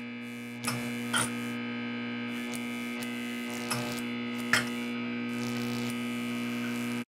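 Steady electrical buzz of a neon sign, with four sharp electric crackles as it flickers, the loudest about four and a half seconds in.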